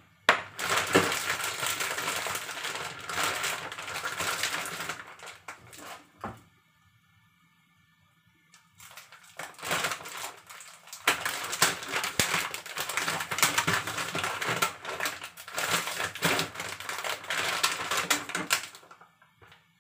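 Plastic bag crinkling and rustling as it is handled and unwrapped by hand, in two long spells with a quiet pause of about three seconds between them.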